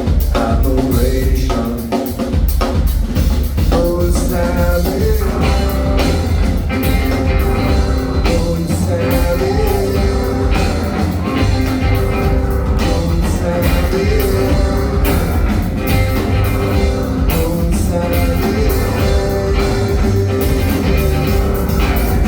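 Live rock band playing loud and continuously, recorded in the room at a club show: a drum kit keeping a steady beat under bass and sustained melodic instrument lines.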